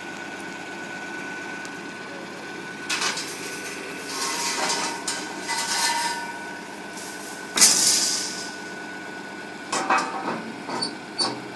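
Hough excavator's engine running steadily with a constant whine, broken by intermittent metal clanks and bursts of hiss as the machine is worked down the trailer ramps; the loudest burst comes about two-thirds of the way through.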